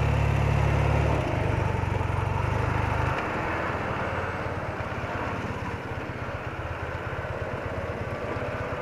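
BMW R80RT's air-cooled flat-twin (boxer) engine running at low speed, its low exhaust beat loudest for about the first three seconds and then quieter, over a steady hiss.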